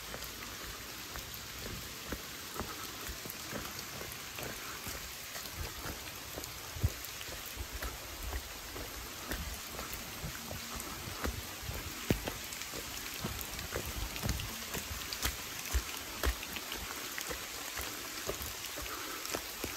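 Steady hiss of rain falling on forest foliage, with irregular soft low thumps of footsteps on a wet dirt track.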